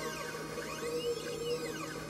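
PocketNC V2 desktop five-axis CNC mill cutting: its stepper-driven axes whine in rising-and-falling pitch sweeps, about one a second, as they speed up and slow down along the toolpath. Under them runs the steady hum of the spindle.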